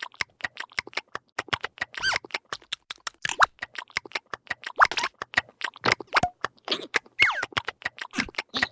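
Cartoon sound effects: a fast, irregular string of sharp pops and clicks, with a few short squeaky chirps among them.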